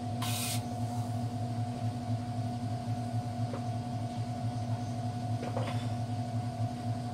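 Steady low hum with a constant tone above it, with a short hiss about a quarter second in and a couple of faint clicks later.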